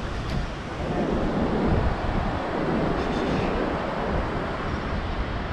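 Wind buffeting the microphone over the steady wash of ocean surf on a beach.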